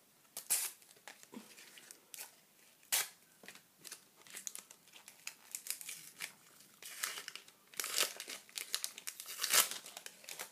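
Sticker packet wrapper being crinkled and torn open by hand: irregular sharp rustles and rips, busiest in the last few seconds.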